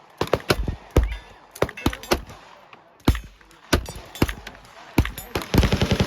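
Gunfire on a shooting range: single shots at uneven intervals from several guns, then a burst of fully automatic machine-gun fire, about a dozen or more rounds a second, starting near the end.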